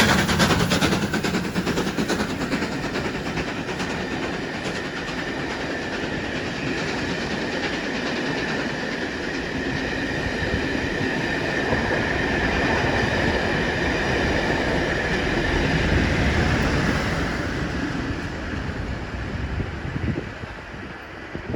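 Passenger coaches of a steam-hauled train rolling past at speed, wheels clattering over the rail joints. The sound is loud at first, swells again partway through, then fades away near the end as the train recedes.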